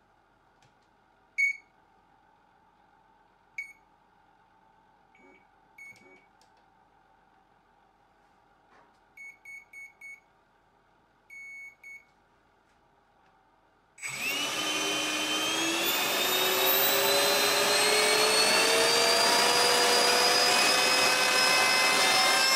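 Short high electronic beeps, single at first and then in quick runs of four and three. About two-thirds in, a 1400-watt electric ducted fan spins up with a loud whine that climbs steadily in pitch toward full power.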